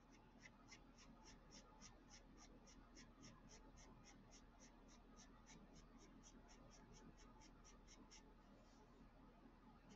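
White charcoal pencil scratching faintly on black drawing paper in short, quick strokes, about four a second, that stop about eight seconds in.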